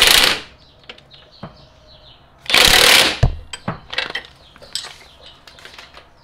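Hand ratchet wrench spinning a nut down on the upper control arm pinch bolt in two quick rattling bursts, with a knock just after the second and scattered tool clicks.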